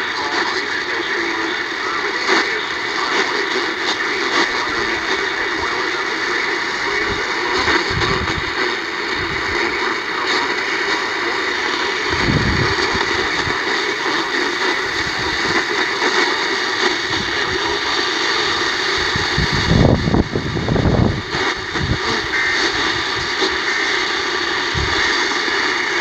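AM radio reception with no programme: steady static and hiss, with a few low rumbles, the loudest about twenty seconds in.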